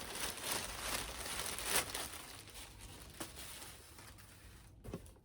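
Doll box packaging being handled, crinkling and rustling, with a few sharp clicks; it fades off after the first few seconds.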